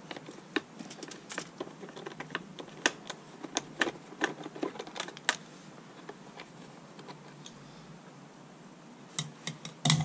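Irregular light clicks and clinks of hand tools and small metal bolts and washers being handled while a motorcycle part is unbolted, thickest in the first half, with a quiet stretch and then a few more clicks just before the end.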